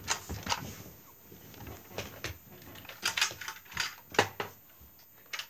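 Handling noise: irregular clicks and knocks as a small plastic toy washing machine is picked up and handled close to the microphone.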